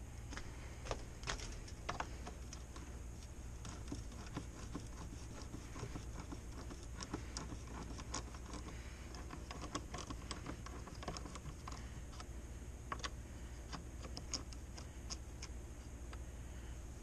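Scattered light clicks and taps of hand tools and small metal parts being handled while working on a dirt bike, irregular and busiest in the middle, over a steady low hum.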